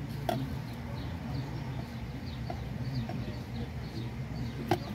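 Low, steady rumble of a car idling while stopped at a red light, with small birds chirping irregularly outside. Two sharp clicks, one near the start and one near the end.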